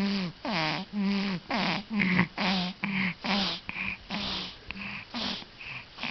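A person's voice making short voiced sounds about twice a second, each starting with a slight downward slide in pitch. They become shorter and breathier near the end.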